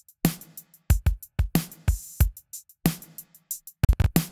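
A drum-kit track playing a steady groove of kick, snare and cymbal hits through the Acustica Audio Coffee compressor in its first limiter mode, driven hard for a heavily compressed sound.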